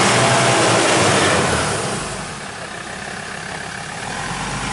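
Ford Ranger Wildtrak pickup's engine revving hard at full throttle, its tyres spinning on slippery mud, then the revs drop back about a second and a half in to a lower, steadier running note. The truck is stuck for lack of grip, on tyres the uploader calls the wrong ones for this terrain.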